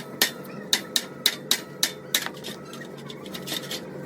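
Hammer striking sheet-metal car body panels in a quick run of sharp metallic taps, about three or four a second, thinning to a few fainter knocks after about two seconds.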